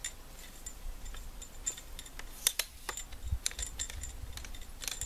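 Telescoping legs of a metal shooting tripod being pulled out and locked: a run of light clicks and clinks, with a sharper click about two and a half seconds in and a low knock just after.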